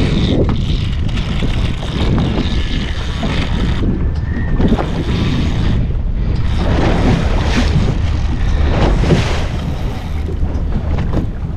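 Wind buffeting the microphone in a steady low rumble, over the wash of sea water around a boat's bow, with a couple of louder surges of wash in the second half.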